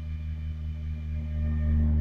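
Low sine test tone of a 100 Hz to 20 Hz sweep driven by a rebuilt Soundstream class-D monoblock car amplifier, a deep steady hum with overtones that grows louder about one and a half seconds in.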